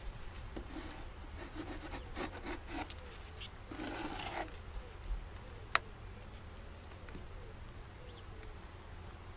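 Wooden beehive frames being scraped and levered with a hive tool in the first half, then one sharp click a little past halfway. Bees buzz faintly around the open hive.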